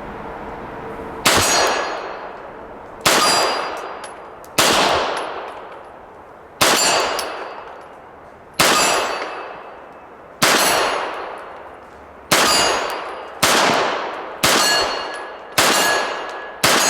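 A Sig Sauer P226 Legion SAO 9mm pistol firing about eleven slow, aimed single shots at 25-yard steel plates, each shot followed by a ringing tail as the steel is hit. The shots come about two seconds apart at first and about a second apart near the end.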